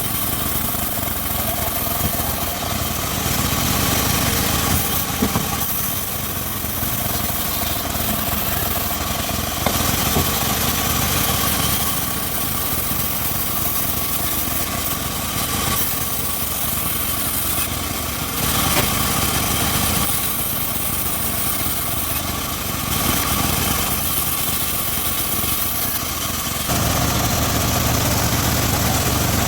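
Homemade engine-driven circular sawmill running steadily, its sound shifting every few seconds and getting louder and lower near the end.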